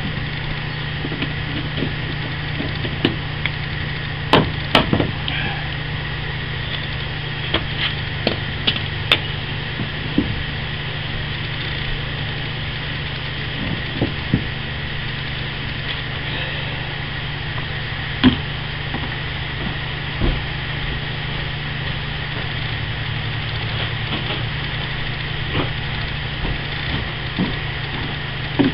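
Scattered, irregular metal knocks and clicks of tools working a door hinge pin out of a VW Beetle hinge, over a steady low hum.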